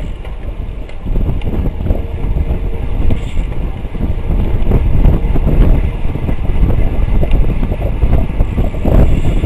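Wind buffeting the microphone of a bicycle-mounted camera on a road bike speeding up to about 28 mph; the rush grows louder about a second in and again around the middle.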